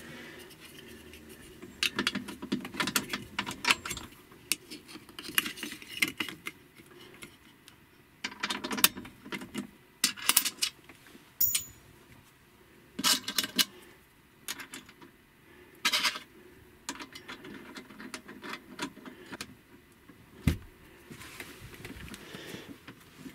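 Irregular metallic clinks, rattles and scrapes of hands working at an inverter's battery cable terminals, handling the heavy cables, terminal hardware and a black terminal cap.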